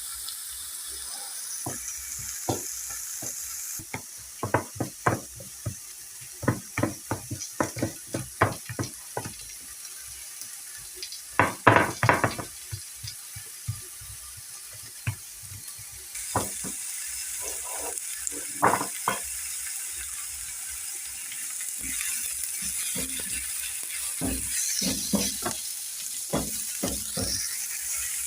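Onions and carrots sizzling as they fry in a pot, with scattered knocks and scrapes of a spoon stirring against the pot. The loudest knocks come in a quick cluster a little before halfway, and the sizzle grows louder in the second half.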